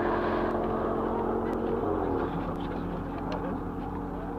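Audi RS6's twin-turbo V10 at full throttle, heard from far down the runway: a steady engine note that drops in pitch about two seconds in and then holds lower.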